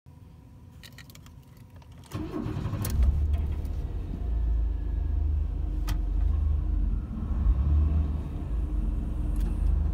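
1995 Pontiac Firebird engine cold-started: after a few faint clicks the starter cranks about two seconds in, and the engine catches within a second. It settles into a steady idle, held high at about 1,500 rpm while cold.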